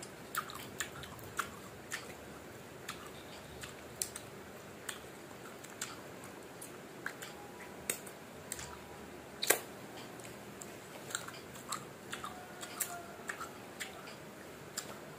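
Close-up chewing of firm, unripe mango slices: irregular crisp crunches and mouth clicks, one louder crunch about halfway through.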